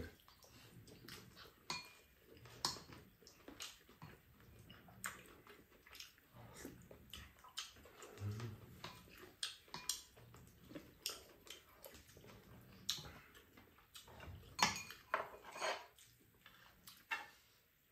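Eating utensils, a metal spoon and chopsticks, lightly clinking and scraping against a frying pan and bowls in scattered, irregular clicks during a meal.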